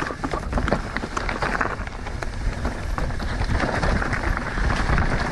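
Mountain bike descending a rough, dusty trail: tyres rolling over dirt and rocks, with many sharp clicks and knocks from the bike rattling over the bumps and a steady low rumble of wind on the microphone.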